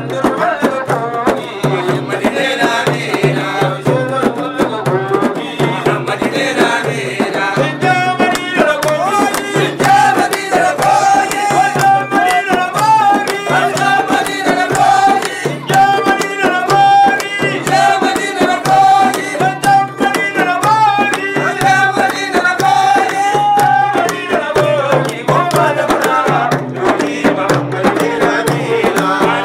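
A Sufi praise song (madih): singing over a steady hand-drum beat. From about eight seconds in, a voice holds long, wavering notes above the drumming until a few seconds before the end.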